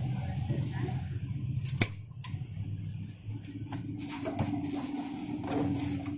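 A polystyrene foam takeaway box being handled and french fries scooped into it by hand: two sharp clicks about two seconds in, then light crinkly rustling and scraping. A steady low hum runs underneath.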